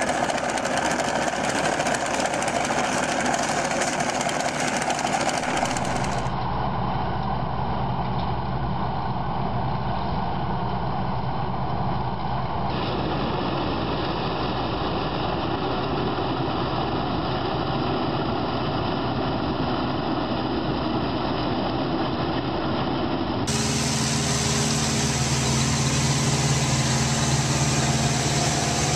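Tractors and tractor-drawn farm machines running with a steady engine drone. The sound changes abruptly about six, thirteen and twenty-three seconds in, as one machine gives way to another.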